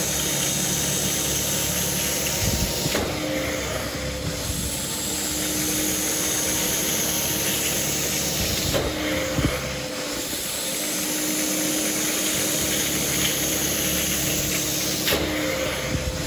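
Hot-water extraction machine (E600 with a three-stage vacuum) running steadily while a clear low-moisture upholstery tool sprays and sucks across a cotton sofa cushion, a continuous loud hiss of suction and spray. The tone shifts briefly about every six seconds, around three, nine and fifteen seconds in.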